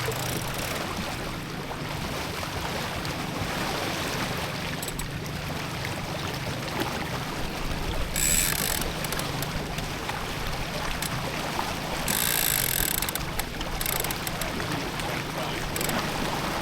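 Water rushing along a sailboat's hull, with wind on the open water. Two brief louder bursts of hiss come through, about eight seconds in and again about twelve seconds in.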